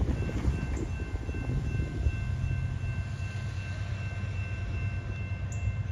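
Diesel engine of a Norfolk Southern GE AC44C6M locomotive rumbling steadily as it leads a slow freight train toward the listener, with a faint steady high whine above it.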